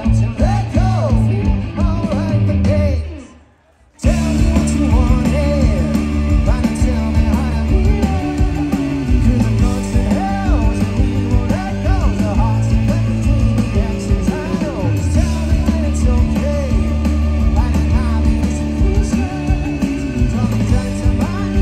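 Indie rock band playing live through a large outdoor PA, with electric guitars, bass, drums and a male lead vocal. About three seconds in the band drops out almost to silence for a moment, then comes back in together and plays on.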